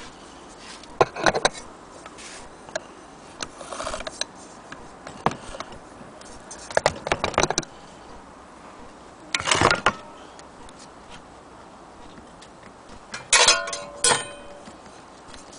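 Metal gramophone turntable platters being handled around a bare clockwork gramophone motor: scattered clinks and clatters of metal on metal. Near the end a platter is set down, with a brief ringing clang.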